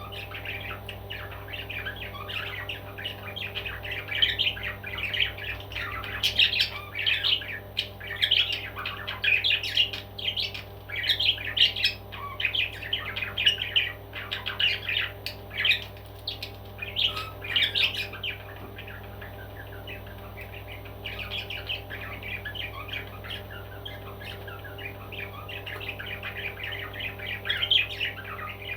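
Pet parrot calling in a quick run of short squawks and chirps, dense for the first two-thirds and thinning out after about 18 seconds, over a steady low hum.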